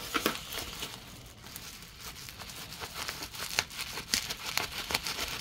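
Plastic bubble wrap crinkling and rustling in irregular crackles as it is unwrapped by hand. It goes sparser for a second or so, then picks up again.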